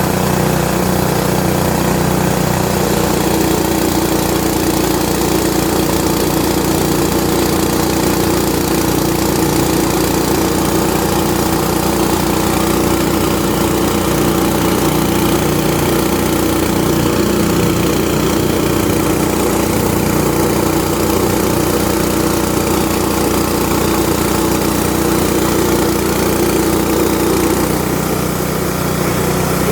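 Mahkota KD-400S mini rice milling machine running steadily, driven by its single-cylinder four-stroke petrol engine, with the engine's steady hum under a dense mechanical rush from the mill.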